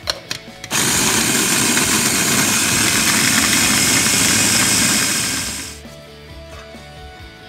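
A couple of clicks as the lid is fitted onto a Hamilton Beach mini food chopper, then its motor runs steadily for about four and a half seconds, chopping chunks of corn dog, and winds down near the end.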